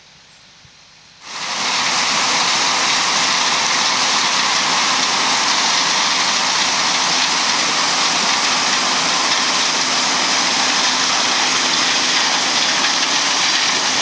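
A John Deere 9510 combine harvesting corn close by: a loud, steady rushing noise of the machine running, with a faint steady hum under it, starting suddenly about a second in.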